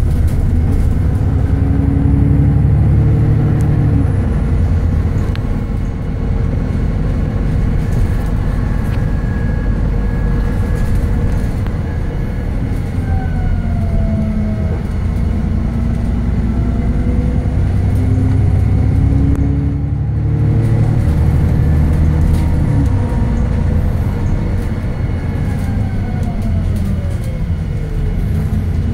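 Diesel engine and drivetrain of an Alexander Dennis Enviro 400 double-decker bus running under way, heard from the rear seats inside the lower deck. A deep engine rumble swells and eases with the driving, and whines glide up and down in pitch as the bus speeds up and slows.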